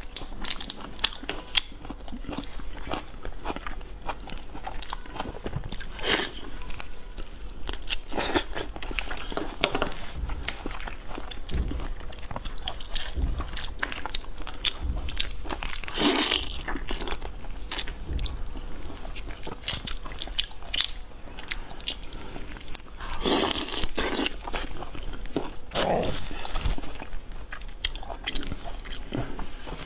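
Close-miked eating of shellfish in broth: shells crackling as they are pulled apart by hand, with biting, crunching and chewing in many short clicks.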